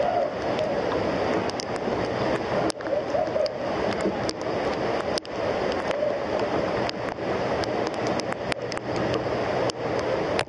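Waterfall rushing steadily, a loud, even roar of falling water, with frequent brief clicks.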